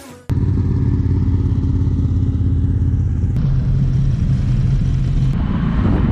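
Sport motorcycle engines running with a steady low throb; the sound changes abruptly about three seconds in and again about five seconds in.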